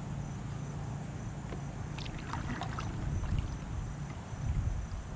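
Wind rumbling on the microphone over a faint steady low hum, out on the water from a kayak, with a few brief sharp clicks or splashes about two seconds in.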